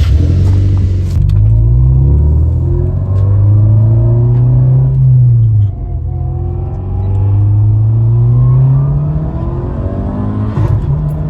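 Car engine, just started, revving and accelerating: its note climbs for about five seconds, drops sharply around the sixth second like a gear change, then climbs again.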